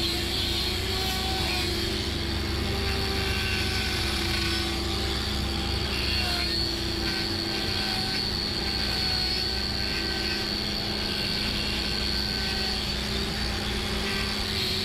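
Angle grinder fitted with a hoof-trimming wheel running steadily, a continuous motor whine over a low hum.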